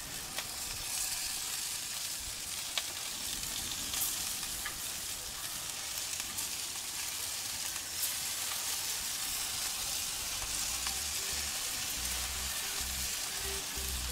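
Chicken breasts sizzling on a gas grill's grate while barbecue sauce is brushed on, a steady hiss with a few faint ticks.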